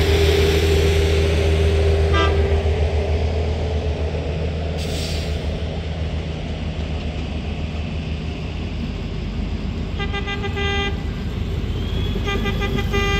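Diesel engines of rail maintenance-of-way track machines rumbling as they travel along the rails, with a short horn toot about two seconds in and two horn toots of about a second each near the end.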